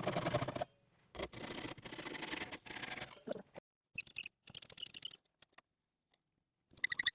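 Hand saw cutting a strip of walnut: scratchy rasping strokes through the wood, stopping briefly just before a second and after about three and a half seconds, then a few light clicks and taps.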